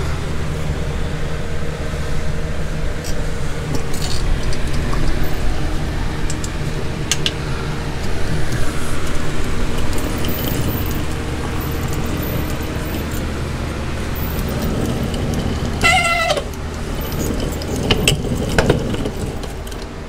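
Steady low mechanical hum. About sixteen seconds in, a short, wavering, high-pitched cry breaks in, followed by a brief rising squeak.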